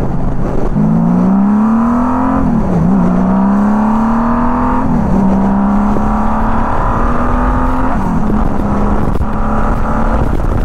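1999 Honda Valkyrie F6C's flat-six engine accelerating hard through the gears. Its pitch rises, drops at quick upshifts about two and a half, five and eight seconds in, then settles into a steady cruise.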